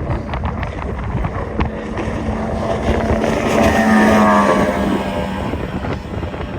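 Powerboat engine running at an easy throttle, its steady tone growing to its loudest about four seconds in and then easing off. Wind buffets the microphone throughout.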